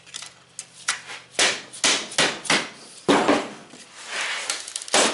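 A heavier pry tool knocking and scraping against a safe's dial stem as it is levered out: about half a dozen irregular sharp knocks, the loudest about three seconds in.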